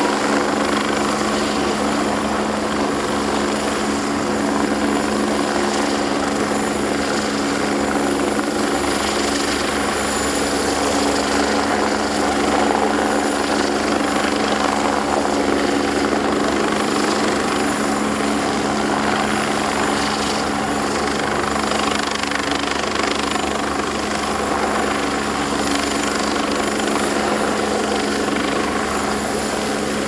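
Kawasaki BK117 twin-turbine helicopter hovering close by, with its rotor and engines making a steady, unchanging drone.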